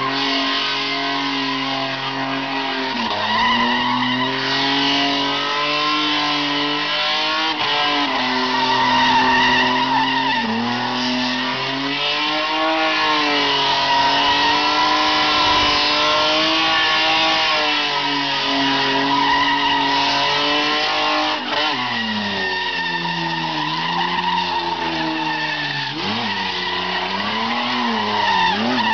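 Toyota Corona doing a burnout: the engine is held at high revs with the rear tyres spinning and squealing on a wet pad. The revs dip and recover a few times, then swing up and down repeatedly in the last several seconds.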